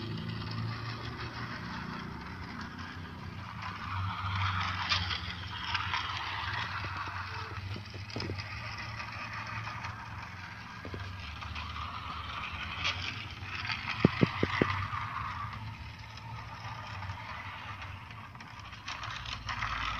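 Battery-powered toy steam locomotive running on a plastic track loop, a steady whir. A quick run of sharp clicks about two-thirds of the way through.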